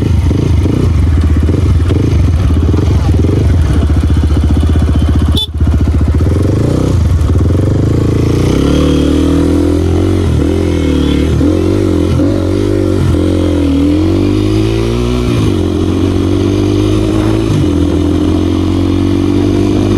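Hyper X 250 dirt bike's engine running under way, its note rising and falling with the throttle and climbing steadily near the end. A brief dropout about five and a half seconds in.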